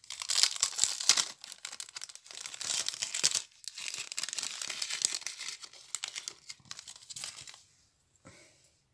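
Crinkling and rustling of thin plastic tackle packaging being handled and pulled open, full of small crackles, with a short break about three and a half seconds in; it dies away near the end.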